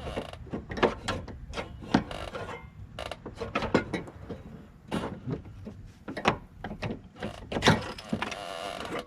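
Irregular clicks, knocks and scraping of a big screwdriver prying at a 2004 Volkswagen Golf's hood latch mechanism, metal and plastic parts snapping and rattling as it is worked loose.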